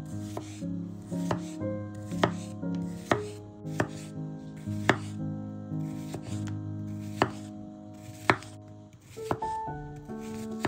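Knife chopping food on a cutting board, single cuts about once a second, over background music.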